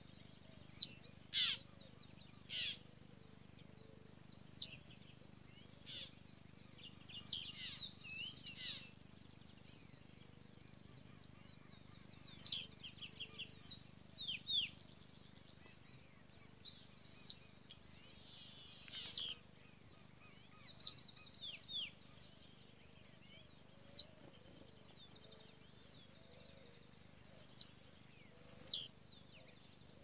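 Small songbirds singing around a trap cage: sharp downslurred whistles repeated every few seconds, mixed with short rapid trills.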